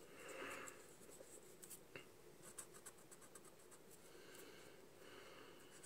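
Very faint scratching and light ticks of a steel chainsaw rim sprocket rolled over a sheet of paper and a marker marking the paper.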